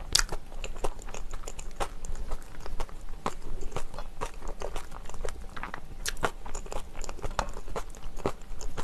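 Close-miked chewing of a mouthful of herring-roe bibimbap, with many small sharp crunches and clicks. A spoon scrapes and taps the stainless steel mixing bowl as the next bite is scooped.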